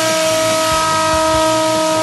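Brushless electric motor and propeller of a foam RC plane running at steady high throttle, a steady whine with a rushing hiss, while the plane hangs nose-up on its own thrust: it has enough power to go vertical.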